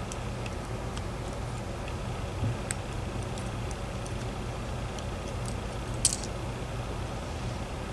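Steady low background hum with a few light clicks and ticks from small lock parts being handled as a dimple lock is taken apart, one sharper click about six seconds in.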